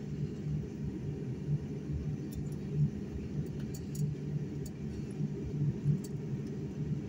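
Steady low rumble and hum inside a jet airliner's cabin as the plane taxis.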